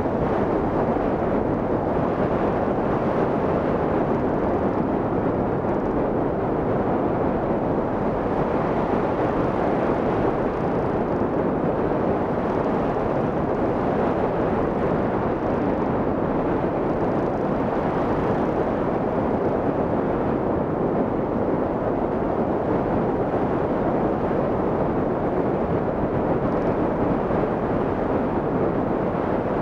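Steady rush of wind over the microphone of a hang glider in flight, an even airflow noise without pauses.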